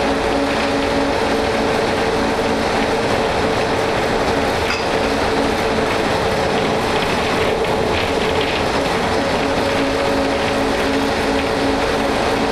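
Cabin noise of a 1988 Ikarus 280.03 articulated bus under way: its six-cylinder Rába diesel engine drones steadily with a pulsing hum under the road rumble. A brief high squeak comes about five seconds in.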